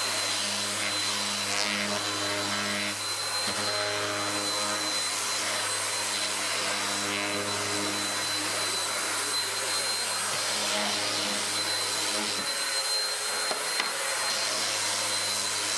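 Handheld electric wood planer running steadily and cutting along the edge of a curved wooden panel. It is a continuous motor noise with a thin high whine.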